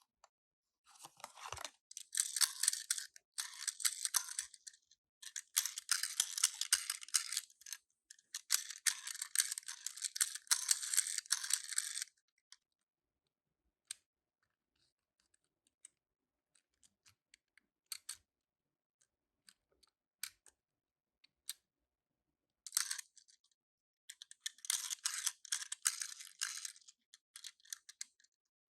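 Toy packaging crinkling and rustling in long bursts while being handled and opened, with scattered small clicks in a lull in between.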